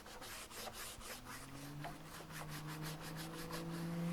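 Rapid scrubbing strokes on a motorcycle tire during cleaning, about four to five a second. From about a second in, a passing truck's engine hum comes in under it, slowly rising in pitch and getting louder.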